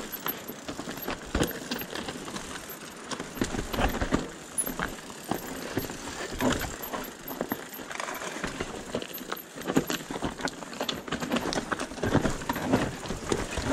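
Mountain bike rolling down a rough, rocky trail: tyres crunching over loose stones and the bike rattling and clattering with each jolt, in an uneven run of knocks and clicks.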